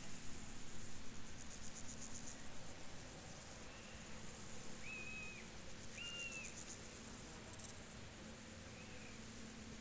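Crickets chirring in repeated bursts of fast, high-pitched pulses, with a few short whistled bird notes about five and six seconds in.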